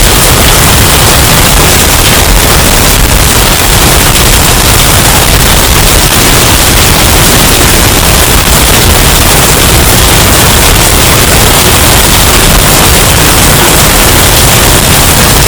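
Hurricane sound effect: continuous wind and storm noise, bass boosted and overdriven so that it is extremely loud and distorted. It stays steady, with no gusts or breaks standing out.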